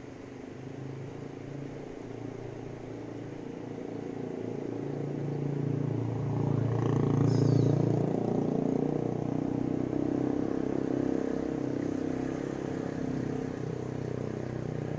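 A motor vehicle's engine passing by: it grows steadily louder to a peak about seven or eight seconds in, then slowly fades.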